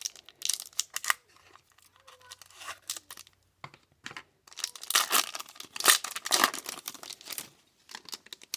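A trading card pack's wrapper being torn open and crinkled by hand, in crackly bursts that are loudest about five to seven seconds in.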